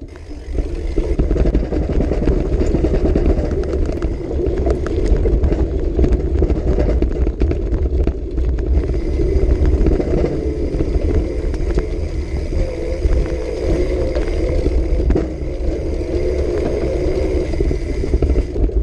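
Bullitt cargo bike rattling and clattering as it rides fast down a rough dirt trail, with many short knocks from the frame. Wind rumbles heavily on the bike-mounted camera's microphone.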